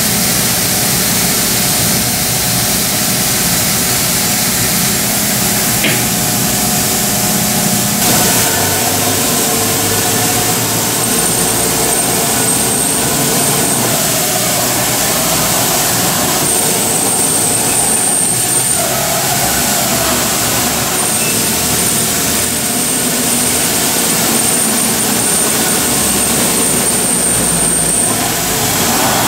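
TRUMPF TruMatic L3030 3000 W CO2 laser cutting machine running and cutting sheet metal: a steady, loud hiss and hum. The hum shifts about eight seconds in, and a thin high whine comes and goes through the second half.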